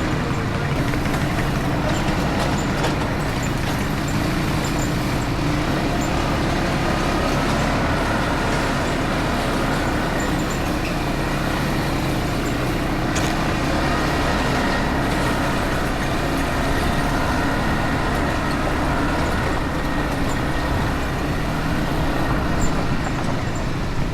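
ATV engine running steadily while riding along a dirt trail, its drone drifting slightly up and down in pitch with no breaks.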